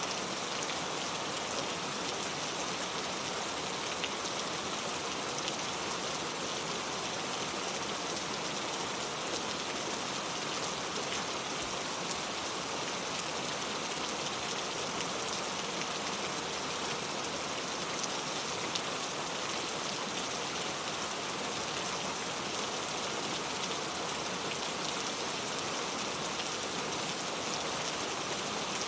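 Steady rain falling and pattering on a surface, with many fine individual drop ticks and an even hiss that keeps the same level throughout.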